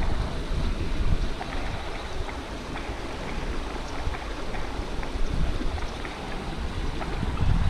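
Shallow river water running over a riffle, a steady rushing noise, with wind buffeting the microphone in uneven low rumbles.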